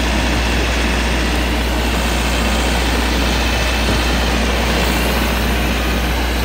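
Ice cream truck's soft-serve generator running steadily: a loud, even engine drone with a strong low hum that does not change.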